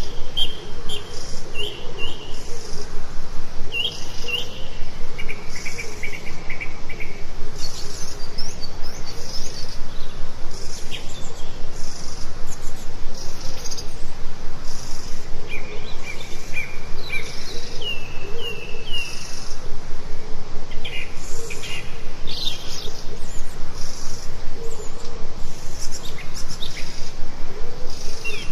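Songbirds chirping and singing in short phrases of quick repeated notes, over a steady, loud background hiss.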